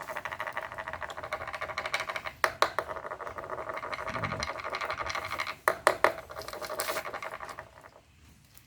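A continuous fast rasping scratch, with a few sharp clicks about two and a half seconds in and again around six seconds; it stops shortly before the end.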